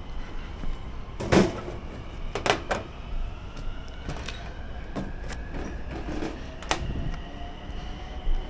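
Several sharp knocks and clanks from gear being handled, the loudest about a second and a half in and another near the end, over a steady low rumble.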